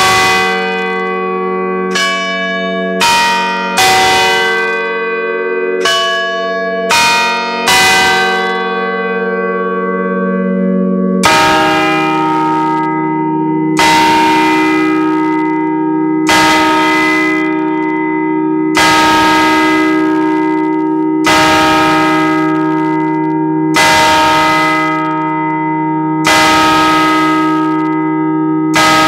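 Bronze church bell in G-flat (the 785 kg "Maria" bell cast by F. W. Schilling in 1950) ringing for the noon bell, heard close up inside the belfry. It opens with a run of unevenly spaced strokes, then from about eleven seconds in settles into a steady stroke about every two and a half seconds, each one ringing on long.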